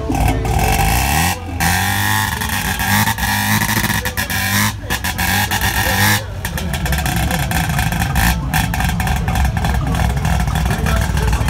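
Turbocharged rotary engine in a Datsun being revved on its anti-lag system: the revs drop away about a second and a half in, then a rapid crackle of pops and bangs from the exhaust runs on through the second half.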